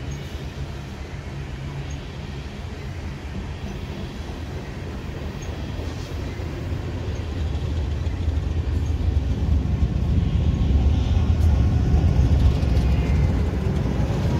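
A loaded coal train's hopper cars rolling past with a steady low rumble of wheels on rail. From about halfway through, the diesel engines of the locomotives working at the rear of the train come in and grow steadily louder as they draw near.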